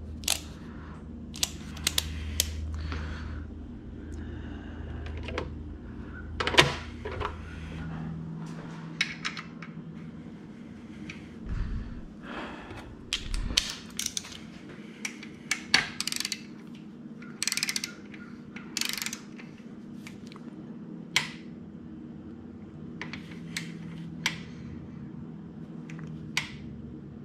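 Irregular clicks and clatter of hand tools as a click-type torque wrench is set and used to tighten engine bolts, over a low hum that stops about eight seconds in.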